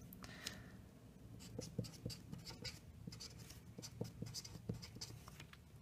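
Sharpie marker writing on paper: a series of short, faint, irregular strokes.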